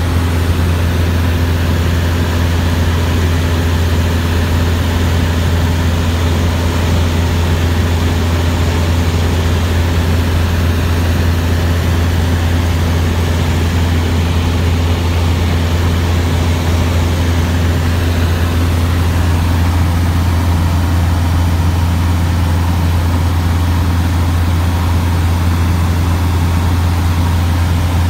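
Cessna 150's Continental O-200 four-cylinder engine and propeller droning steadily in cruise flight, heard inside the cabin as a constant deep hum under an even hiss.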